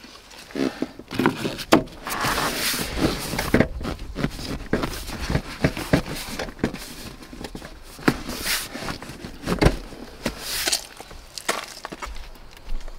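Tesla Model 3 rear seat cushion being handled and pressed back into place: irregular knocks and clicks with rubbing and rustling of leather and plastic.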